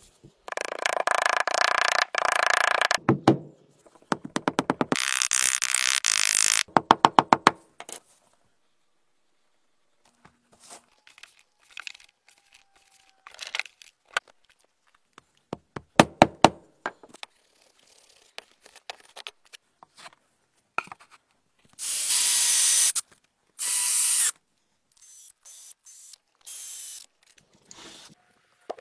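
A power tool running in several bursts of a few seconds each, some of them a fast rattle of repeated strokes, with scattered knocks and clicks between the bursts.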